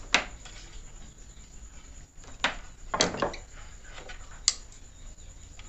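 Sharp clicks and taps of hand tools being handled: a small tester screwdriver set down and a pair of pliers picked up to work on a cable end. About four clicks spaced through a few seconds, with a short cluster around the middle.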